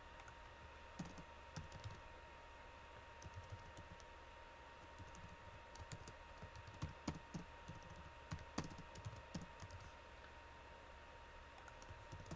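Faint computer keyboard typing: irregular keystrokes in scattered runs, over a faint steady tone in the background.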